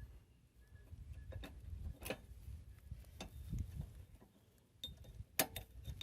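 Scattered light metal clicks and taps of a hand tool working a cotter pin out of a Craftsman T1400 riding mower's front axle, about five in all, with the sharpest click near the end.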